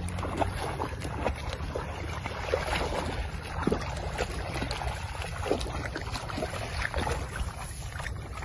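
Wind rumbling on the microphone, with scattered small splashes and rustles from feet wading through shallow muddy water and tall grass.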